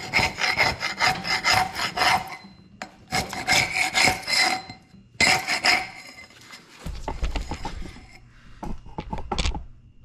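A Hyde 3-inch heavy-duty steel scraper scraping cured Gorilla Glue (polyurethane) squeeze-out off the face of a wooden beam. It comes in three runs of quick, rasping strokes in the first six seconds, then lighter, scattered scrapes and a few dull bumps.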